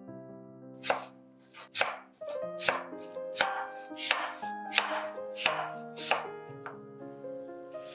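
Chef's knife slicing through a raw apple and knocking on a wooden cutting board: about ten crisp chops at a steady pace, roughly one every 0.7 s, starting about a second in, over soft background music.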